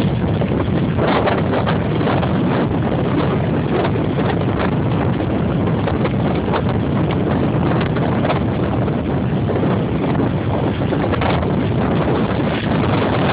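Strong wind buffeting the microphone, loud and steady with irregular gusty knocks, over the rumble of big storm waves breaking at high tide.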